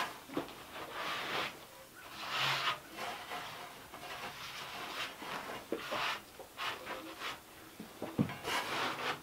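Steel shovel scraping up loose sawdust from hard ground and tossing it into a tractor's loader bucket, in repeated scrape-and-swish strokes about every second or two, with a few sharper knocks of the blade near the end.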